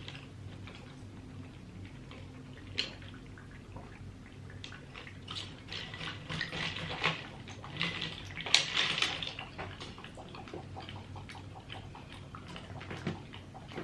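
Close-up eating sounds from a seafood boil: wet chewing, smacking and sucking, with scattered small clicks, busiest a little past the middle.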